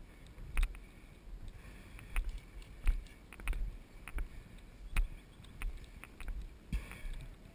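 A string of sharp clicks, each with a low thump, about one every half second to a second, over a low rumble of wind and handling noise.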